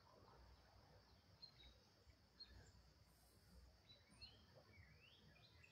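Near silence with faint, scattered bird chirps and a few short sliding calls about four seconds in.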